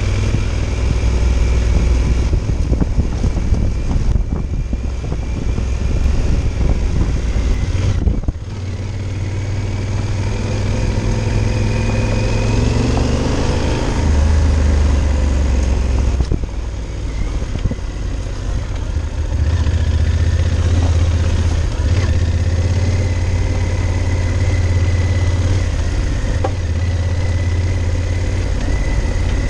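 Yamaha Super Tenere's parallel-twin engine running under way, its note rising and falling with the throttle. It dips briefly about eight seconds in, and near the middle the note climbs for a few seconds, then drops.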